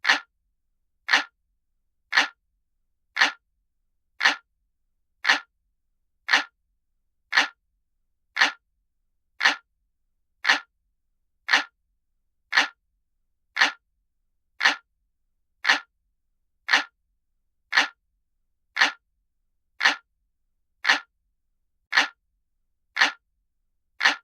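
Clock ticking sound effect: one short, sharp tick about once a second, each tick alike, with silence between them.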